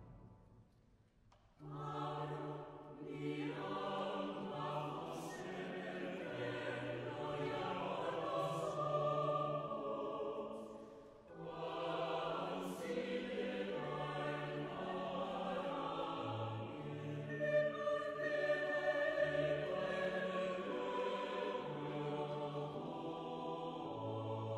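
Mixed chamber choir singing early Baroque polychoral sacred music in parts, with steady low bass notes under the voices. The voices come in after a short silence about a second and a half in, break off briefly around eleven seconds, and then come back in.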